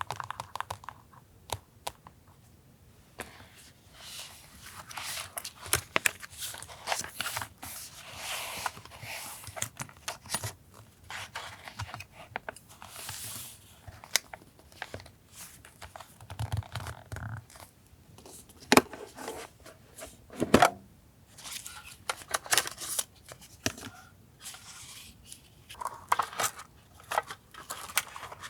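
Sheets of paper being handled and torn by hand, with crinkling rustles and small taps and clicks of stationery on a desk, and two louder sharp clicks about two seconds apart around two-thirds of the way through.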